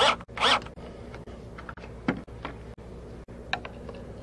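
Cordless drill driving a screw into aluminum boat rub rail: two short bursts of the motor right at the start, each rising and falling in pitch. After that there are only a few faint clicks.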